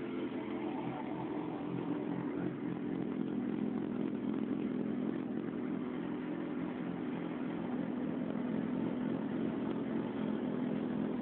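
Suzuki GSX650F motorcycle's inline-four engine running steadily through its exhaust, growing slightly louder over the first few seconds.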